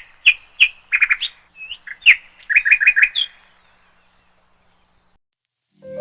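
A songbird singing a quick series of sharp chirps and fast trills for about three seconds, then falling silent; music starts right at the end.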